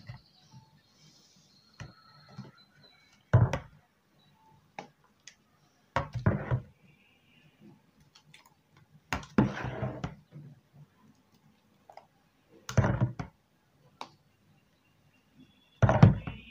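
Metal ladle scooping thick blended strawberry concentrate from a plastic bowl and tipping it into a plastic tub, five times: each scoop a short knock and scrape about every three seconds, with small clicks between.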